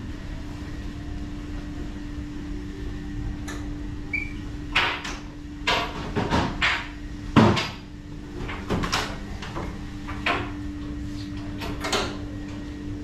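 Irregular knocks and clatters, about a dozen between roughly four and twelve seconds in, the loudest a little past halfway, over a steady low hum.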